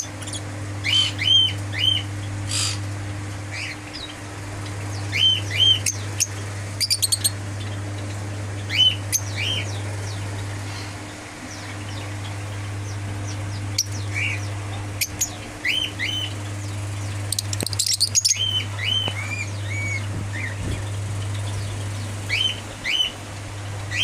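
Lovebirds chirping: short, high, arched chirps scattered throughout, often in quick pairs or runs of three or four. A steady low hum runs underneath.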